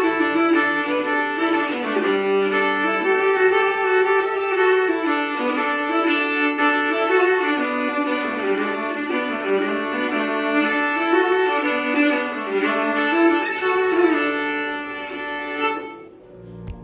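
Luthier-made viola of Brazilian woods being bowed, playing a melody: a sound test of the instrument after its neck reset, new bridge and repositioned soundpost. The playing breaks off shortly before the end.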